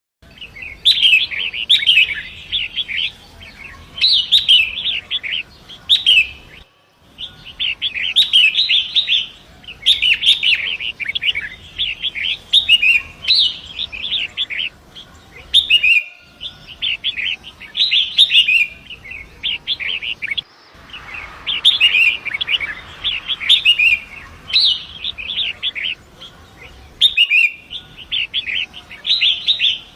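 Long-tailed shrike (pentet) singing in repeated phrases of rapid, chattering high notes, each one to two seconds long with short pauses between. The sound cuts out abruptly for an instant a few times, as at edits in a looped recording.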